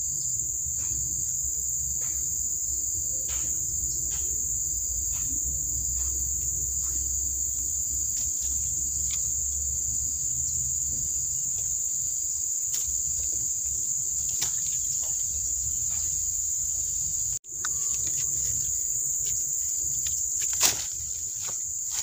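Steady high-pitched drone of insects, with scattered light clicks and a sharper knock near the end.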